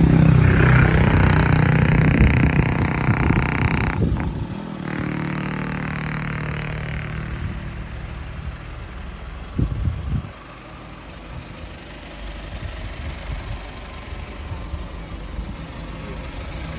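A motor vehicle's engine running close by, loud for the first few seconds, then fainter and steady. A brief low bump comes about ten seconds in.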